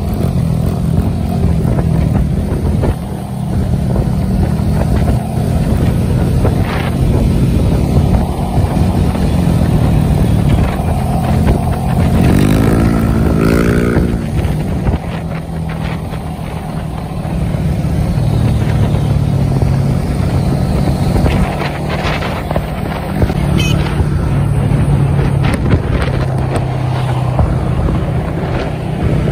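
Motorcycle engine running steadily while riding at road speed, its pitch shifting with the throttle. A brief rising engine note cuts in about halfway through.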